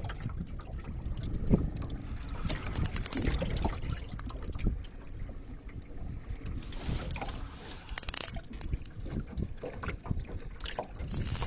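Wind buffeting the microphone, with irregular knocks and rustling of people moving in a small boat.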